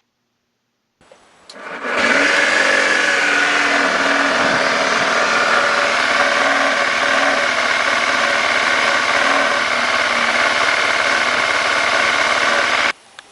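Honda Zoomer AF58 scooter's small single-cylinder four-stroke engine starting up and running steadily at idle, its crankshaft bearings freshly replaced and the abnormal noise gone. The sound stops abruptly near the end.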